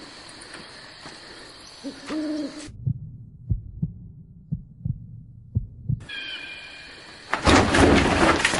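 A low hooting call about two seconds in. Then the sound turns muffled, with a run of dull thumps, and loud rustling noise starts near the end.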